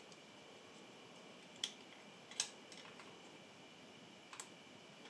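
A few light, sharp plastic clicks as the two grey hull halves of a small plastic model kit are handled and pressed together. The sharpest click comes about two and a half seconds in, over a faint steady hiss.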